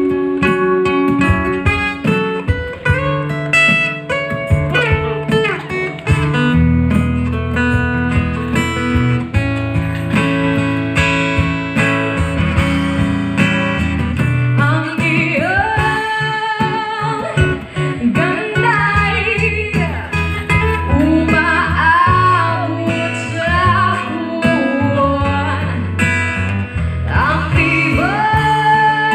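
Acoustic guitar played as a picked instrumental passage, then a woman begins singing into a microphone over the guitar about halfway through.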